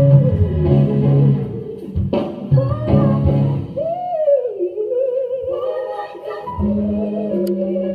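Slow music: a long, wordless melody with vibrato, sung or played high over sustained low accompanying notes.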